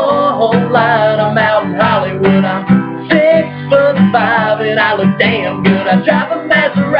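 Acoustic guitar strummed under men singing a country song.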